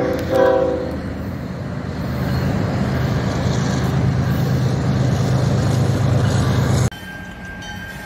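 Diesel freight locomotive horn sounding two short blasts, followed by the steady low rumble of the approaching freight train. Near the end the sound cuts off abruptly to a quieter track-side scene.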